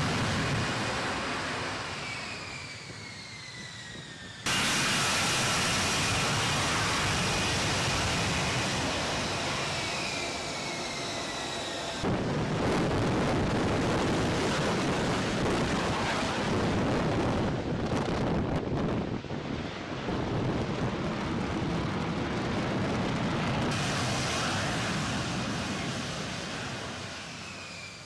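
F-35B Lightning II jet engine noise during vertical landing and hover: a loud, dense roar with a high whine that slides down in pitch. The level jumps abruptly several times as shots change.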